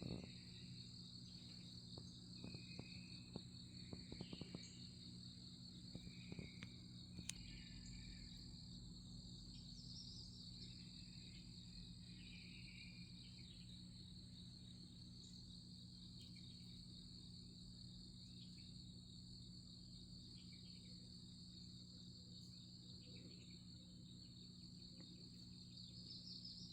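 Faint, steady high-pitched insect trilling, with a few short bird chirps scattered through the first half and a low steady hum underneath.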